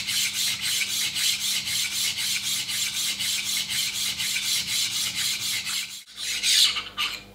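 Steel hair-clipper blade rubbed dry back and forth on a DuoSharp diamond sharpening plate, an even rasping of about four strokes a second: coarse grinding to flatten the blade face and cut a fresh edge. The rasping stops about six seconds in.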